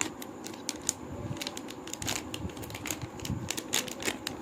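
Plastic packaging of a pack of hair pins being handled and opened, crinkling with many irregular small clicks.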